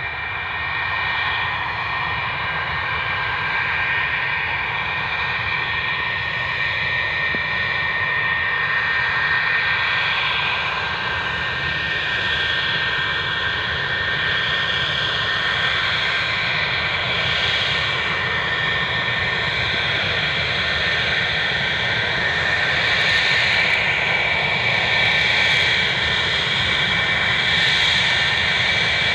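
English Electric Lightning F6's twin Rolls-Royce Avon turbojets running at taxi power: a steady, loud whine of several high tones over a jet rush. It grows a little louder after about twenty seconds.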